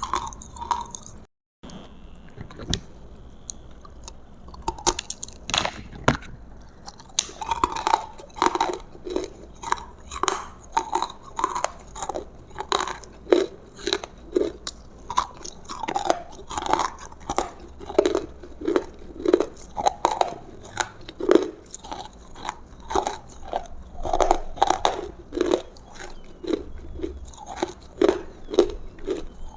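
Close-miked chewing of crunchy food, with crunches and mouth sounds in a steady rhythm of one to two chews a second, and a brief cut to silence a second and a half in.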